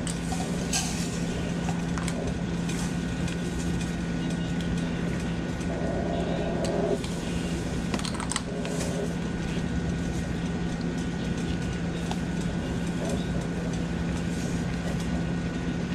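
A steady machine-like hum with a low tone and a fainter high whine, and a few faint clicks over it.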